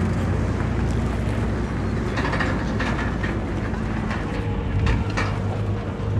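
Diesel engine of heavy earthmoving machinery running steadily, with a series of knocks and clatters from about two to five seconds in.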